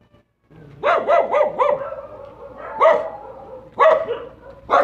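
Dog barking: a quick run of about four barks about a second in, then single barks near three seconds and four seconds in. The sound cuts out for half a second at the start.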